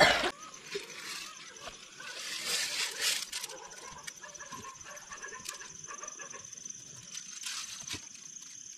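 Outdoor rural ambience: an insect's steady high-pitched trill sets in a couple of seconds in, over faint scattered animal calls and two brief rustles.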